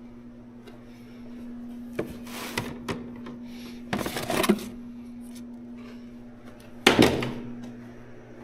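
Several knocks and clunks of things being handled, the loudest about seven seconds in, over a steady low hum.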